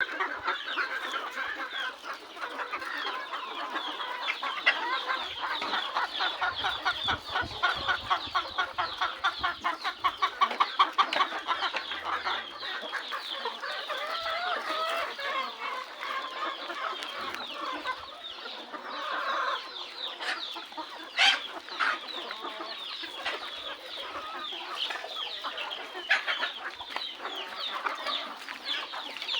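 A flock of desi chickens clucking and calling continuously, many birds at once, with a loud run of quick, regular clucks a few seconds in.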